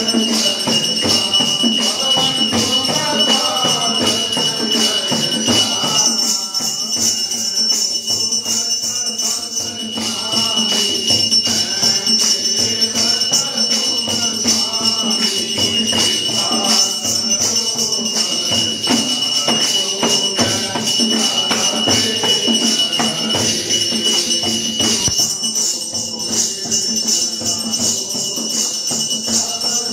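Devotional aarti music: rapid, steady jingling hand percussion with chanting voices, and a steady high-pitched tone running under it.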